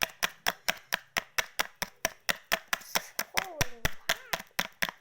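A small plastic bottle of slime colouring knocked or shaken hard and fast, about five sharp taps a second, to force colour out of a bottle that won't open.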